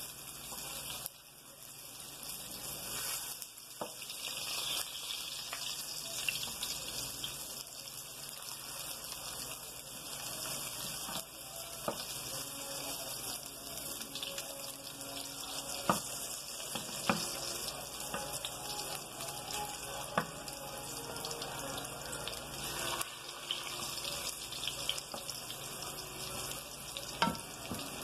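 Plantain slices frying in hot oil in a pan, a steady sizzle, with a few sharp clicks of a spatula against the pan.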